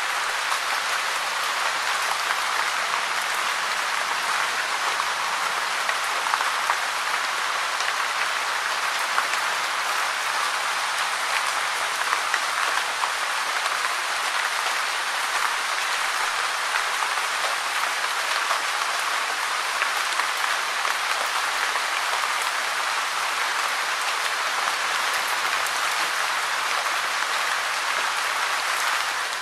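Heavy rain falling steadily, a dense, even hiss of countless drops pattering on surfaces.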